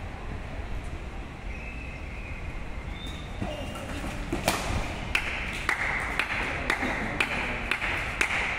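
A sharp smack of a badminton racket on the shuttlecock about four and a half seconds in. Then rhythmic hand clapping, about two claps a second, over a rise in crowd noise as the rally ends.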